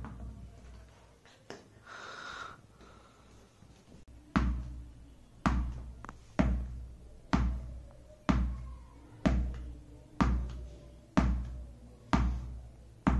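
A tennis ball bounced on a tiled floor and caught again, about ten dull bounces in an even rhythm of about one a second, starting some four seconds in.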